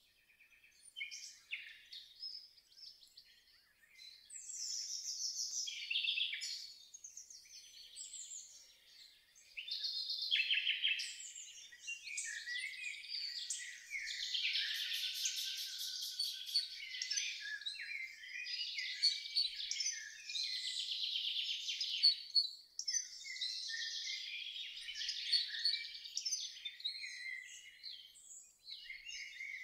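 Birds singing and chirping, many short calls and trills overlapping into a continuous chorus, with a fast high trill about halfway through.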